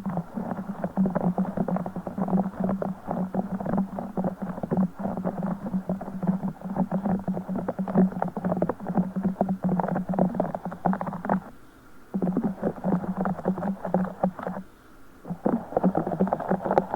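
A broken Orbeez ball being squeezed and squished by hand close to the microphone: dense, fast wet crackling and squelching of the gel beads, with two short pauses in the second half.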